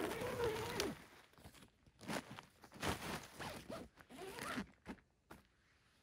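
Tent door zipper being pulled shut in a series of strokes. The longest and loudest stroke comes in the first second, and shorter ones follow up to about five seconds in.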